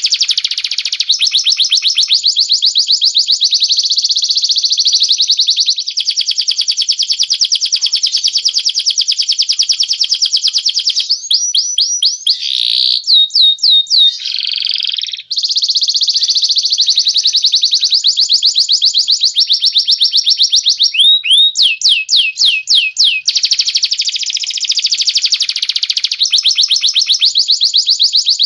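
Cage-bird song: long, very rapid rolling trills, interrupted twice around the middle by runs of separate repeated whistled notes that fall in pitch.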